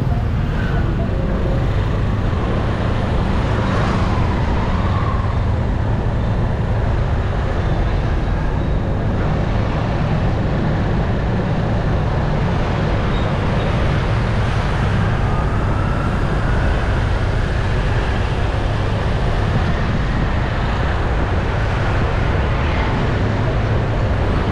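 Steady street traffic noise, with no single sound standing out.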